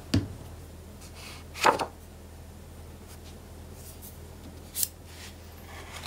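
Paper being handled and laid down on a cutting mat: a soft knock right at the start, a louder brushing sound just under two seconds in, and a short faint one near five seconds. A low steady hum sits underneath.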